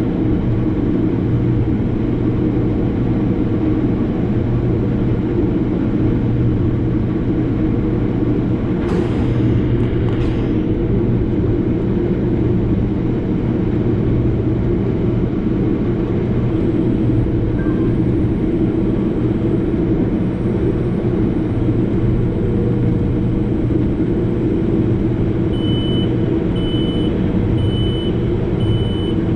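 Case IH 7088 combine running steadily under load while harvesting wheat, a dense, even drone. Near the end a high-pitched alert starts beeping about once a second.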